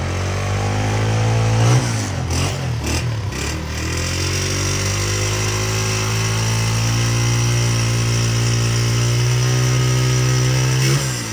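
Honda CG125's single-cylinder four-stroke engine being revved. The revs rise, drop back, and are blipped a few times. The engine is then held at a steady raised speed for several seconds before the revs fall away near the end.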